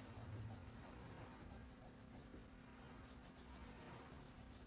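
Faint scratching of a crayon rubbed back and forth on paper while colouring, over a low steady hum.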